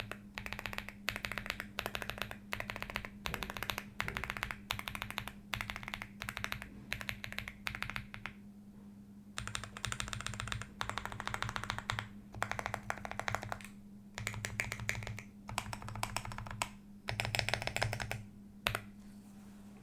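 Zoom 65 mechanical keyboard with lubed Akko Lavender Purple tactile switches and Shenpo keycaps being typed on in quick bursts of keystrokes, with a short pause about eight seconds in. A faint steady low hum sits underneath.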